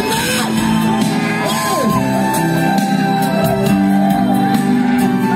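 Loud music from a stage performance, with the crowd shouting and whooping over it.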